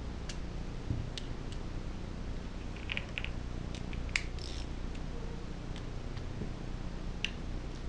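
Scattered light metal clicks and taps from hand tools: a socket pulled off a socket rail and snapped onto a ratchet, with a quick run of clicks about three seconds in and a sharp tap just after four seconds. A steady low hum lies underneath.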